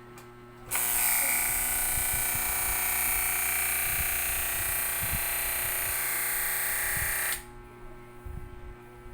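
Electric hair clipper switched on and running steadily for about seven seconds, then switched off, as it is tried out for the first time.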